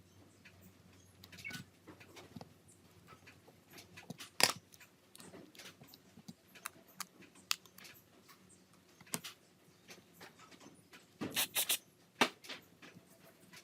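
Small clicks and taps from handling parts and tools while working on a Nokia E71 phone. One louder tap comes about halfway through, and a quick run of four or five clicks comes near the end.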